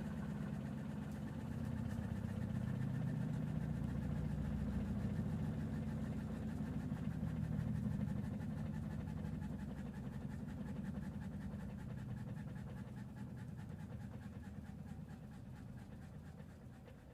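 LEJ14 washing machine running with a rapid rattling noise from its suspension, a sign that the suspension is already failing. The sound dies away gradually over the second half.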